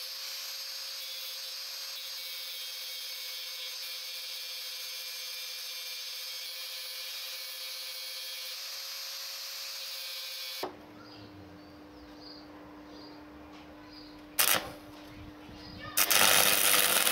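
Angle grinder with a disc running steadily, grinding the rusty end of a seized stud clean to prepare it for welding. Near the middle the sound cuts to a quieter low hum, broken by two short loud noises near the end.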